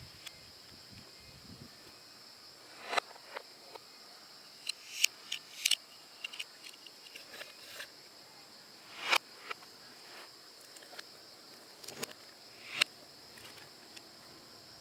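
Marbles running down a plastic building-block marble run: scattered sharp clacks, some coming after a short rolling rise, over a steady faint high hiss.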